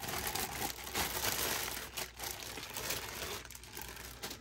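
Thin clear plastic bag crinkling and rustling in the hands as it is pulled off a hard plastic cup holder piece, dying down near the end.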